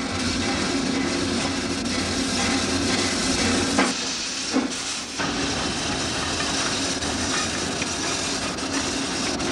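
Narrow-gauge steam locomotive standing with steam hissing steadily from around its cylinders, over a steady hum. Two sharp knocks come about four seconds in.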